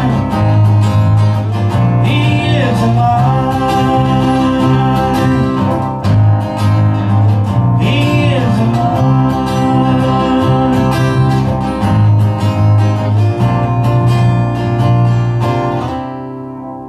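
A country-gospel band playing: acoustic guitars strumming under a sung lead vocal, with two held, sliding sung phrases. The music fades out near the end.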